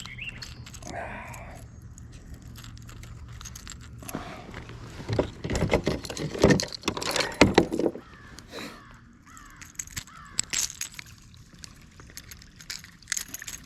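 Rattling, knocking and clattering as a hooked bass is landed and handled on a small topwater lure with treble hooks, loudest in a run of sharp knocks in the middle.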